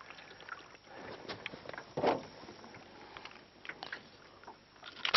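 Quiet handling noises from a freshly caught traíra and fishing gear in an aluminium boat: scattered light clicks and knocks, with a slightly louder knock about two seconds in.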